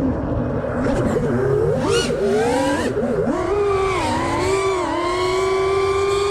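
FPV racing quadcopter's brushless motors whining. The pitch swings up and down quickly with throttle, then holds a steady high whine from about halfway.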